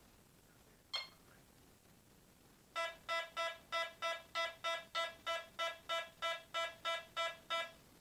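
DIY two-tone metal detector beeping: one short higher beep about a second in, then a run of about sixteen lower beeps at about three a second, stopping just before the end, as it signals a metal target.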